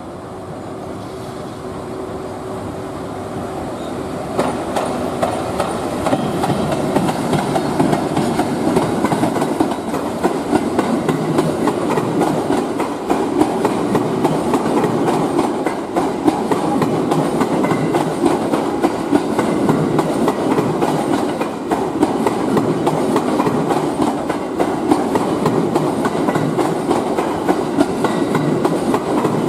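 EF81 electric locomotive hauling a towed E231 series commuter train past, with wheels clattering over rail joints and points in a steady clickety-clack. It grows louder over the first few seconds as the train draws level, then stays even as the cars roll by.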